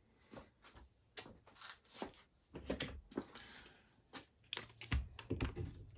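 Clamps being set and tightened on a wooden board: a string of irregular clicks and knocks, with a brief scrape about three seconds in and a few heavier knocks near the end.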